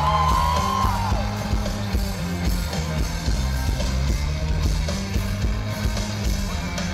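Live rock band playing loud through a concert PA, a heavy bass guitar line and drums underneath; high wavering yells from the audience die away about a second in.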